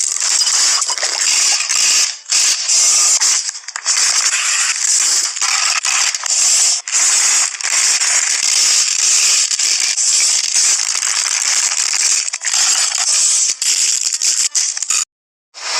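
Dense, continuous crackling and crunching noise, bright and hissy, with a few brief breaks and a short silent gap near the end.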